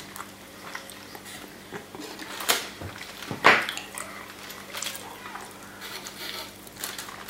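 Fork clicking and scraping against a foil-lined plastic takeaway tray as it is handled, with the foil crinkling; scattered sharp clicks, the loudest about two and a half and three and a half seconds in.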